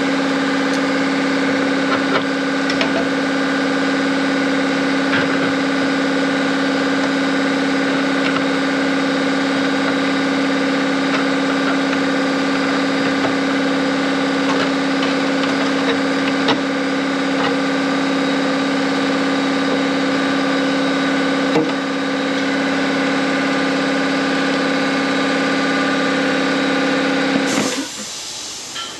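A motor-driven machine runs at one steady pitch, with a few light clicks and taps over it. It shuts off about a second and a half before the end, leaving a steady hiss.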